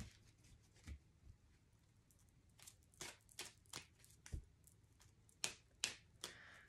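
Oracle card deck being shuffled and handled: faint, irregular flicks and taps of the cards.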